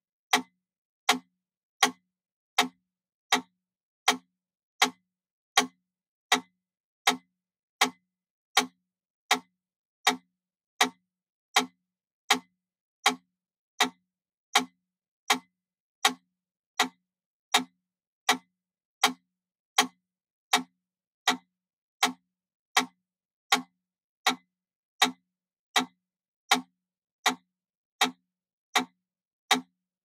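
Wooden mechanical pyramid metronome ticking at 80 beats per minute: one sharp, even click about every three-quarters of a second, with silence between.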